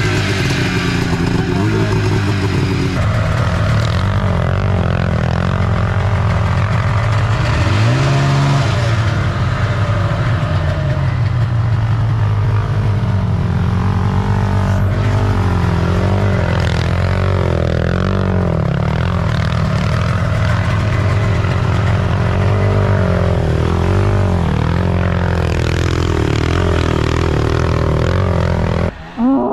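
A snowmobile's two-stroke engine running for the first few seconds, then a sport ATV's engine revving and accelerating hard, the pitch rising and falling as it spins through snow.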